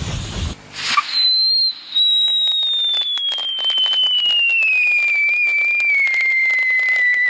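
A firecracker's whistle charge burning: a loud, shrill whistle that starts about a second in and slowly falls in pitch, with steady crackling from the burning composition.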